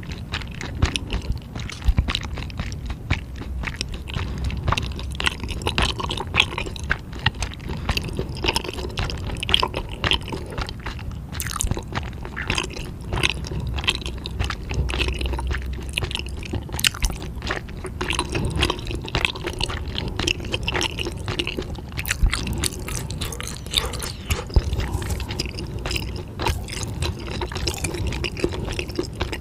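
A person chewing food, a dense, irregular run of small clicks and crunches.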